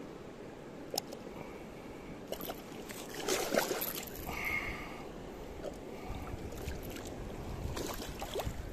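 Water sloshing and splashing around rubber waders as a person wades through a shallow, stony river, with a few sharp knocks. The loudest splashing comes about three and a half seconds in.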